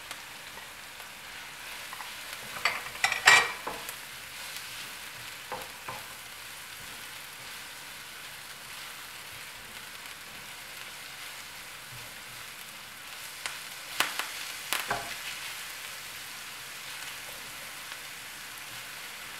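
Chopped red onion, garlic, ginger and curry leaves sizzling steadily in oil in a frying pan as they are stirred with a silicone spatula. A few brief, louder knocks of the spatula against the pan come about three seconds in and again around fourteen to fifteen seconds in.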